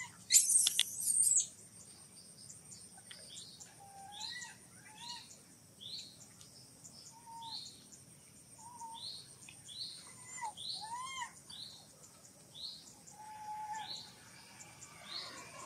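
A baby macaque gives a brief, shrill scream about a second long near the start. After it comes a run of short chirping calls, about one a second, over a faint steady high hum.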